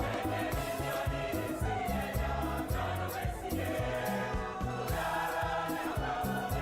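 Background music: choral gospel-style singing over a steady bass beat.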